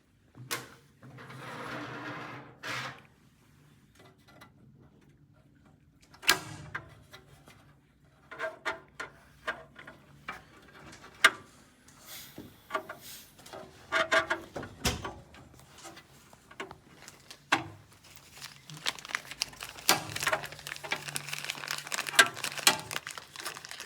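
Irregular clicks, knocks and rattles of small metal and ceramic parts being handled and taken out of a dental press furnace during disassembly, with a brief rustle near the start and a quick run of small clicks near the end.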